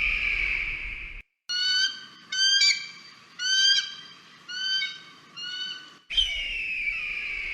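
Eagle calls: a long falling scream, then a run of about six short, high piping calls a little under a second apart, then another long falling scream near the end.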